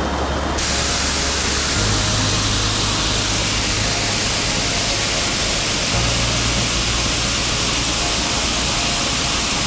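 Rushing water of a mountain stream, a loud even hiss that starts abruptly about half a second in, under background music whose low notes change every few seconds.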